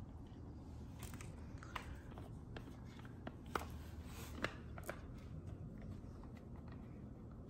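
Handling noise from a ring light being put together: its plastic ring and gooseneck arm click and rub in the hands, with two sharper clicks around the middle.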